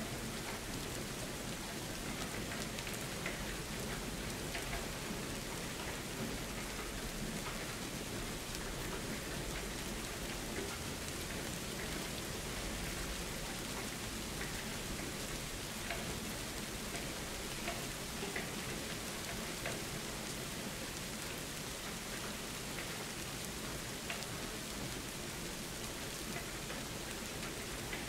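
Steady rain falling, an even hiss with scattered individual drops ticking through it.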